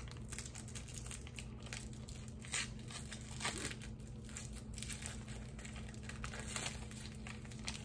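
Candy wrappers crinkling and tearing as a lollipop and a Fun Dip packet are unwrapped by hand, in short irregular crackles over a steady low hum.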